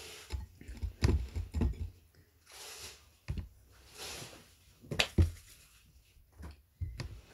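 Close-up chewing and wet mouth sounds, with irregular sharp clicks and soft knocks and a few short bursts of hiss between them.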